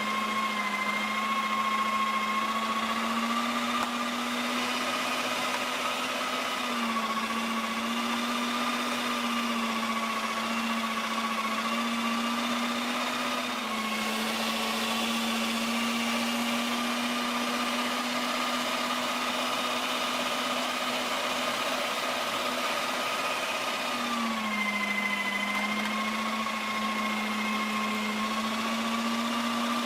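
Cuisinart electric meat grinder's motor running steadily while grinding short ribs and other meat for burgers. Its pitch dips slightly twice, about a quarter of the way in and again near the end.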